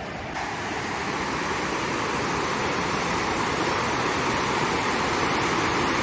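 Fukiware Falls, a wide, low waterfall where the river pours into a cleft in its rock bed, giving a steady rush of falling water that grows slightly louder.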